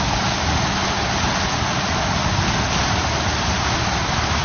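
Vehicle wading through deep floodwater: steady rushing and splashing of the bow wave against the vehicle, over a low engine rumble.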